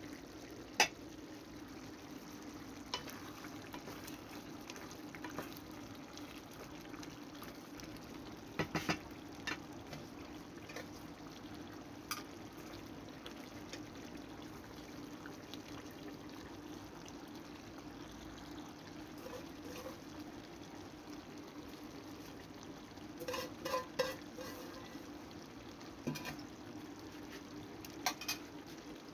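Chicken heart and gizzard stew simmering in an open pot, with a steady low hum underneath. Scattered sharp clicks and clinks come and go, the loudest about a second in.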